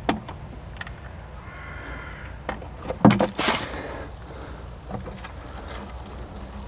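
Drain nut coming free from a Renault Megane's oil sump with a sharp clatter about three seconds in, followed by a burst of hiss as engine oil starts running out of the sump onto a plastic container. Small handling clicks come before it.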